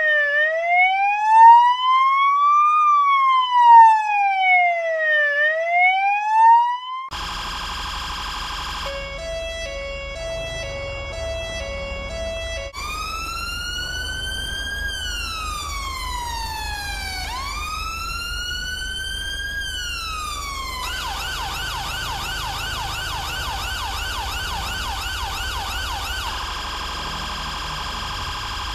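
UK police sirens: a smooth wail rising and falling every two and a half seconds or so. About seven seconds in it gives way to a second siren over a low vehicle rumble, which steps through a two-tone pattern, a slower wail and then a rapid yelp.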